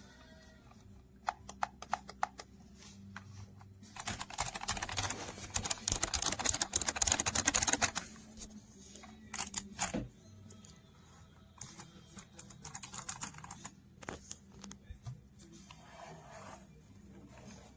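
Keys of a gaming keypad with mecha-membrane switches being pressed rapidly, clicking in bursts, with a dense, loudest flurry of key presses about a third of the way in and shorter clusters after.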